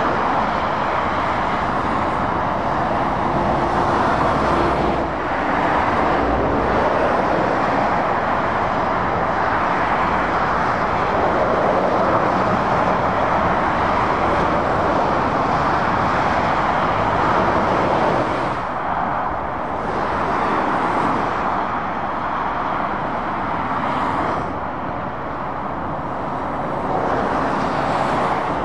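Steady road traffic noise from lorries and cars passing on a motorway: mostly tyre noise with engine sound underneath. It dips slightly a couple of times in the second half as gaps open in the traffic.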